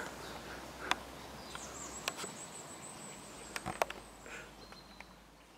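Faint outdoor ambience with a thin, high, steady note lasting about two seconds, a fainter high note near the end, and a few short sharp clicks.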